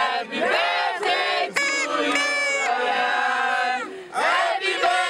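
Party crowd cheering, voices shouting in long, drawn-out high cries that break off briefly a little before four seconds in.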